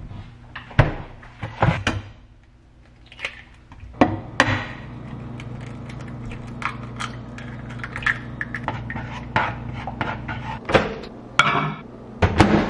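Kitchen handling clatter while frying eggs: sharp clicks and knocks as an egg carton is handled and eggs are cracked into an oiled nonstick frying pan, with a steady sizzle of frying from about four seconds in. Clunks near the end as a microwave door is opened.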